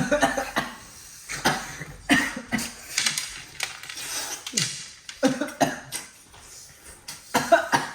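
Repeated short coughs at irregular intervals.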